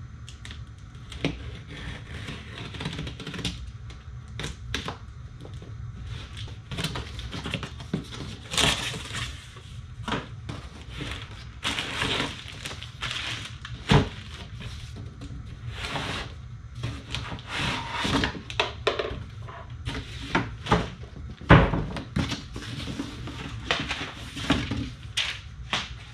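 Cardboard box being opened and unpacked: flaps and packing rustling and scraping, with irregular knocks as parts are set down on a wooden workbench and two loud thumps, one about halfway through and one later.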